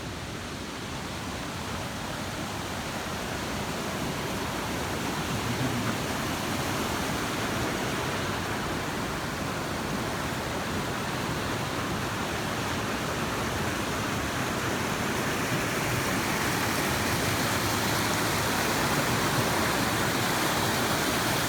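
Mountain creek rushing as a steady wash of water noise, growing gradually louder.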